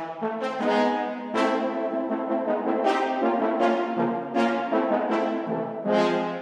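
Sampled orchestral brass section from the VSL Synchron Brass library (trumpets, horns, trombones, bass trombone and tuba) playing back from a MIDI mockup: a passage of sustained chords, each entry starting with a clear attack.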